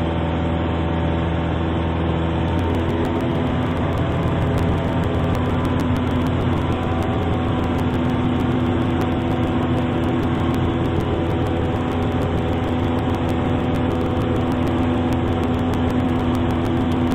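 Piper Super Cub's piston engine and propeller droning steadily at climb power, with an even, unchanging pitch.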